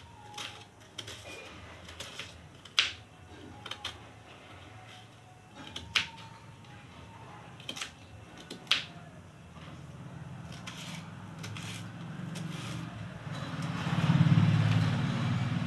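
Kitchen knife chopping an onion on a wooden (bamboo) cutting board: sharp taps of the blade on the board every few seconds, with lighter ones between. From about ten seconds in, a low rumble builds up and becomes the loudest sound near the end.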